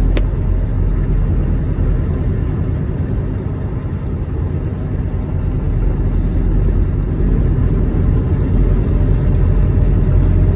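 Steady low rumble of a semi truck's engine and tyres on a snow-covered road, heard from inside the cab.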